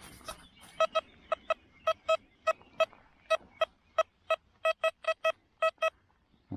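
XP Deus metal detector giving target signals: about twenty short beeps of one mid-pitched tone, many in quick pairs as the coil passes back and forth over a target.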